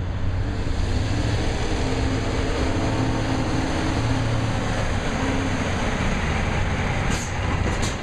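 M917 8x6 military dump truck's Detroit Diesel V8 two-stroke diesel running as the truck drives slowly up, a steady low drone. Two short hisses of air, from its air brakes, come near the end.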